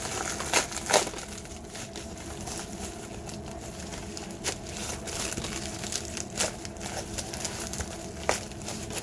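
White plastic bubble mailer crinkling and rustling as it is pulled and worked open by hand to free a stuck item, with sharp crackles of the plastic every second or two.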